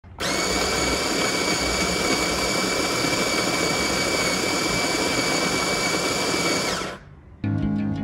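Smeg electric coffee grinder running steadily, grinding coffee beans with a constant whine over a gritty grinding noise. Near the end the motor's pitch dips as it winds down and stops.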